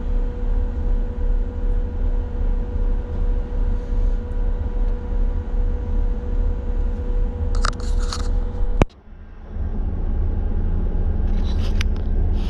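A Liebherr mobile crane's engine running at rest, heard from inside the operator's cab as a steady low rumble with a thin steady whine over it. A sharp click comes near nine seconds in; the sound drops out for a moment, the whine stops, and the rumble carries on.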